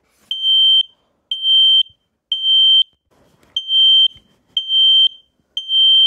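Kidde KN-COSM-BA combination smoke and carbon monoxide alarm sounding its smoke alarm signal: two groups of three loud, high-pitched beeps, each about half a second long, with a short pause between the groups. This three-beep pattern is the temporal-three signal for smoke or fire.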